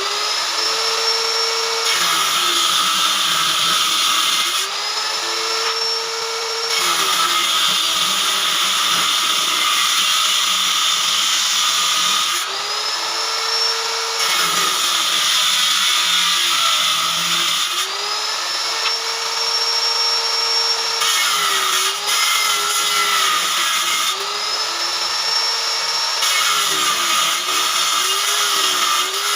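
Electric woodworking power tool cutting wood in repeated passes, about every five or six seconds. The motor whine climbs and holds while it runs free between passes, then sags with a rougher cutting noise while it is in the wood.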